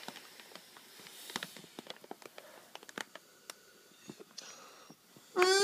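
Plastic zip-lock bag crinkling and crackling in quick little clicks as it is blown up through a blowpipe, with a faint hiss of air. Near the end the bagpipe chanter's reed strikes in with a loud reedy note that slides up in pitch as the bag pressure builds.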